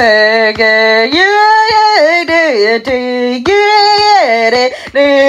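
A voice singing an anime opening theme song, in long held notes that step up and down in pitch.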